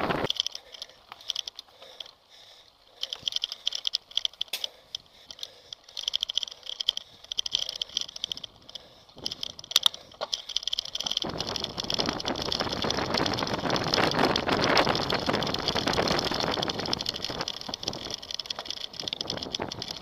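Mountain bike ridden over rough dirt trail, heard from an on-board camera: scattered clicks and rattles of the bike over the bumps, then from about halfway a steady rush of tyre and wind noise as the ride speeds along.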